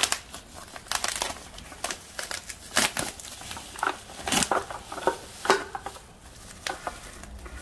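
Plastic bubble wrap and shrink-wrap crinkling and crackling in irregular bursts as tins of cat food are handled and pulled out of it.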